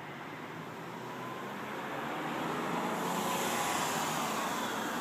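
Road traffic: a rushing vehicle noise that swells over the first three seconds and then holds.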